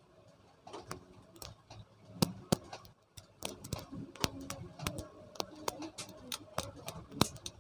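Irregular small clicks and taps from handling a ceiling fan's wires while its winding is checked.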